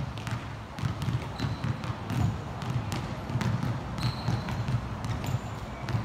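Several basketballs dribbled at once on a wooden gym floor: overlapping, irregular thuds with no single beat.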